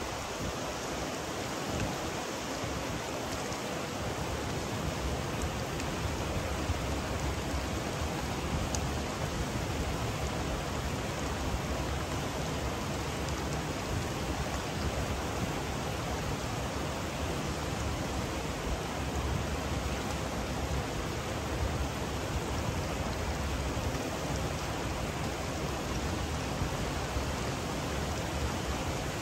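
Steady rushing of water, an even hiss that runs without a break.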